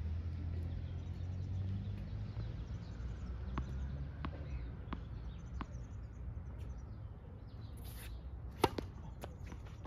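Tennis ball bounced four times on a hard court, about 0.7 s apart, then a sharp crack of the racket striking the ball on the serve near the end, the loudest sound.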